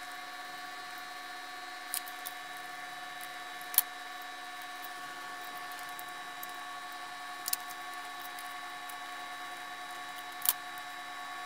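A few light taps and clicks of small objects being handled and set down on a hardboard work surface, the sharpest about four seconds in, over a steady faint hum with several high tones.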